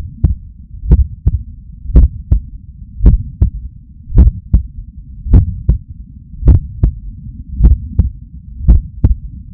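A human heartbeat heard through an electronic stethoscope pressed to the chest: steady lub-dub pairs, the first sound stronger than the second, at about 55 beats a minute, over a low rumble.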